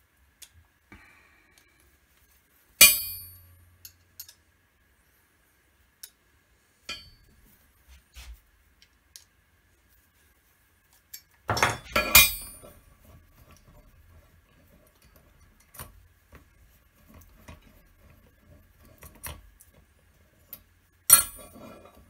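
Metal concho dies clinking and knocking against each other and the anvil as they are handled and taken apart. A sharp ringing knock comes about three seconds in, a burst of clanks near the middle and another near the end, with light clicks between.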